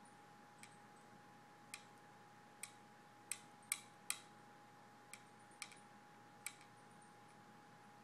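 A dreaming dog tapping in her sleep: about nine sharp, uneven clicks, the loudest three coming quickly together around the middle, in an otherwise near-silent room.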